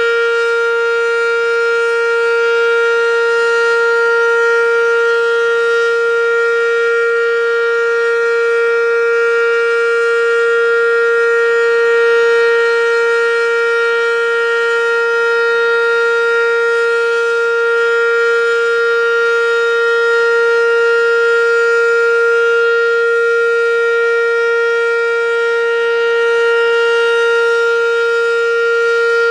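American Signal OM-117 omnidirectional outdoor warning siren sounding a full alert: one steady, very loud held tone that neither rises nor falls.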